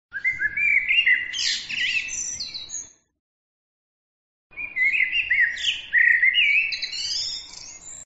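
A songbird singing two phrases of varied whistled notes, slides and high twitters, each about three seconds long, with a sudden gap of complete silence between them.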